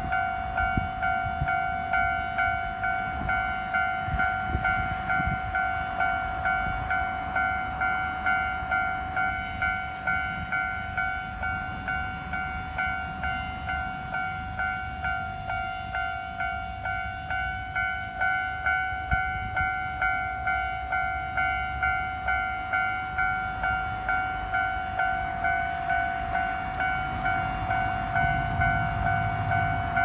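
Japanese railway level-crossing warning bell ringing in a steady, even rhythm, just under two strikes a second, with the crossing barriers down: the signal that a train is approaching.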